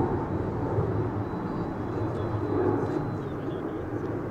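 Radio-controlled model airplane flying high overhead, its motor and propeller a steady distant drone amid outdoor noise.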